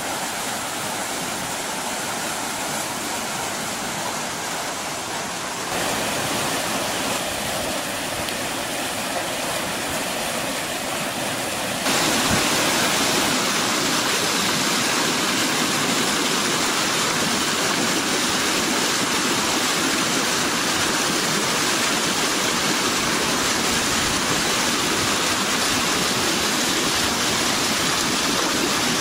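Floodwater rushing and churning into a road culvert entrance, a steady, dense rush of turbulent water that steps up louder about twelve seconds in. The culvert is running full after many hours of non-stop rain, its entrance struggling to cope.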